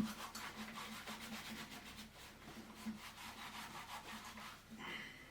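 Faint rhythmic scrubbing of a soapy rubber flip-flop, a quick run of scraping strokes a few times a second.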